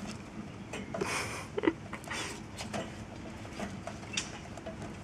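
Young rabbits feeding together at a dish of bee pollen: irregular small clicks and rustles of chewing and shuffling in hay, with a few louder scuffs between about one and two seconds in.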